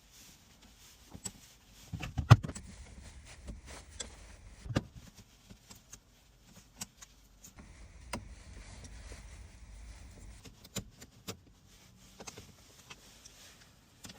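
Scattered clicks and knocks of keys and tools being handled at a car, the sharpest about two seconds in and again near five seconds.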